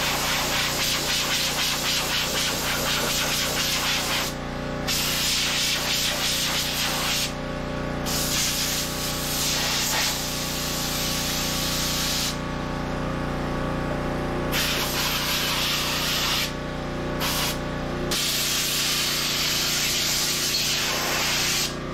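Compressed air hissing from an air compressor blow gun, blowing debris out from between a radiator and transmission cooler. It comes in long blasts broken by several short pauses, over a steady low hum.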